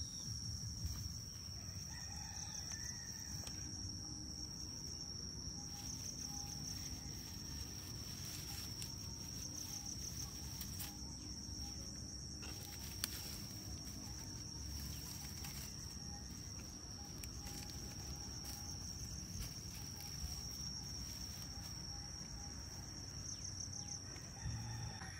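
A rooster crowing over a steady, high-pitched insect drone that pulses now and then.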